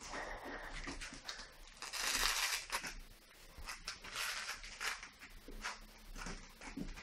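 Cats scrambling and clawing on a carpeted cat tree while they wrestle, giving bursts of scratching and rustling. The loudest burst comes about two seconds in, and a second follows around four to five seconds in.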